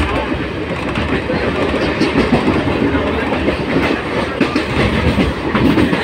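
Train running along the line, heard from inside a carriage at the window: a steady rumble of the carriage with the wheels' rapid clickety-clack over the rails.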